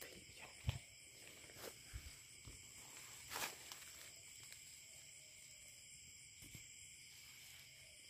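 Faint, steady high-pitched chirring of night insects, with a few soft knocks and rustles, the loudest about three and a half seconds in.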